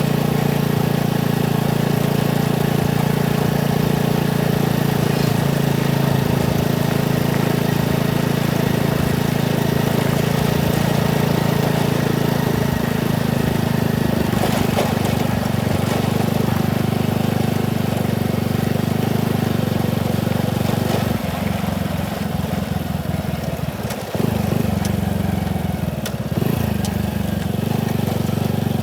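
Motorcycle engine running steadily while riding. About three quarters of the way through, the engine note eases off and dips briefly, then picks up again.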